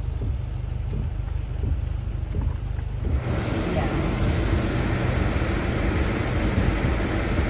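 Inside a car stopped in heavy rain: a steady low rumble throughout, joined about three seconds in by a sudden steady rushing hiss that holds to the end.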